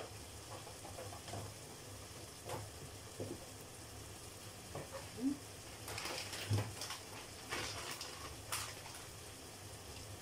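Sliced sausage, tomato and spices frying quietly in a pot on a gas burner, with scattered small pops and ticks over a low steady hum.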